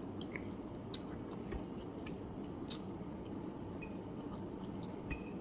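Close-miked eating: a person slurping and chewing a mouthful of noodles, with a few short, sharp clicks scattered through.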